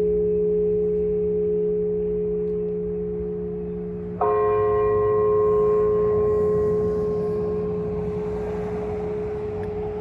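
A single church bell tolling: the hum of the previous stroke rings on, then it is struck once more about four seconds in and the new stroke rings out, slowly fading. It is rung as a call to prayer.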